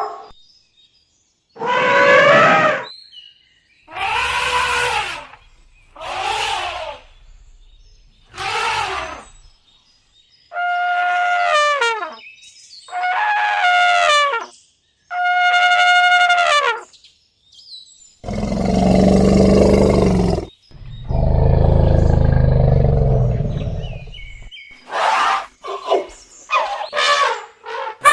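Elephant calls: about seven brassy trumpet calls of about a second each, separated by short silences, then two longer, deep, rough roars of about two to four seconds, and a few short, sharp calls near the end.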